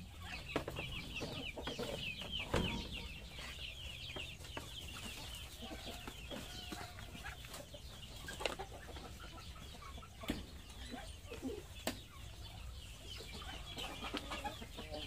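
Backyard chickens clucking, with a run of rapid high chirps in the first few seconds and a few sharp knocks scattered through.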